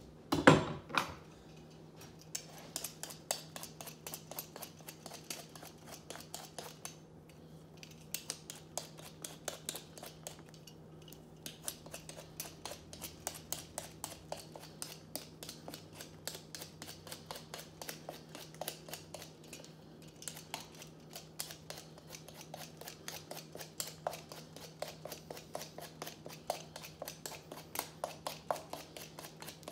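A mushroom being cleaned by hand: a knock, then a long run of quick short scraping strokes, about three to four a second, with brief pauses.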